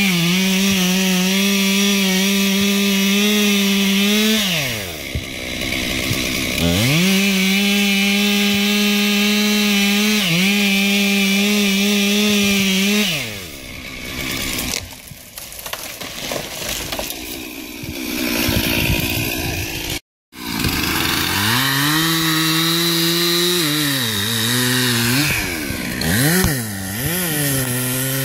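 Two-stroke gas chainsaw cutting into a tree trunk at full throttle; the engine drops off and revs back up a few seconds in, dips briefly, then falls away for several seconds. After a break it cuts again, its pitch sagging and recovering repeatedly under load near the end.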